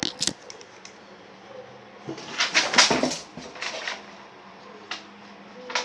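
Small plastic doll accessories being handled and packed: a couple of sharp clicks, then a cluster of knocks and scraping about two to three seconds in.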